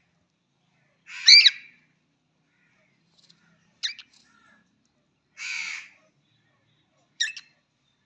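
A cockatiel calling four times in short bursts. The first, about a second in, is the loudest and sweeps up and down in pitch. The third, near the middle, is a harsher, raspy call.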